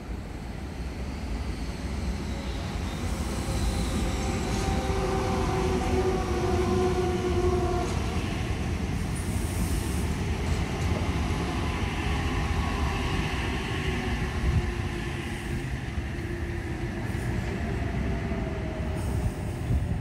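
Sydney Trains H-set (OSCAR) double-deck electric train running past close by: a continuous rumble of wheels on rail with a motor whine that slowly drops in pitch.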